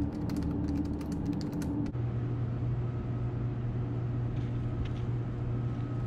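Typing on a computer keyboard: a quick run of key clicks for about the first two seconds, then a steady low hum with only a few faint clicks.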